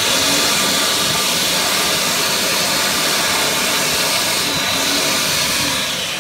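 Blue-light hand dryer built in above a stainless steel basin, blowing a steady loud rush of air over a wet hand.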